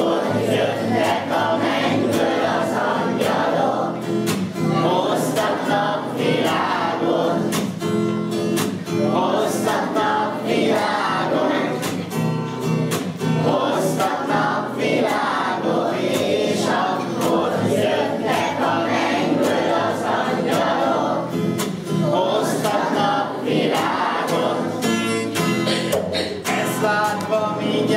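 A group of children singing a Christmas song together, accompanied by a strummed acoustic guitar.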